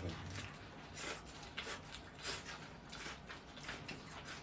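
Faint eating sounds: quiet chewing with several short, soft crunches and rustles from crisp raw napa cabbage leaves wrapped around rice.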